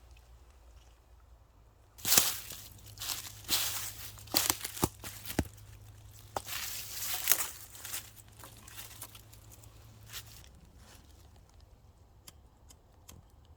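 Dry twigs and leaves crunching, rustling and snapping: a run of sharp cracks and rustles for about eight seconds, then a few faint clicks near the end.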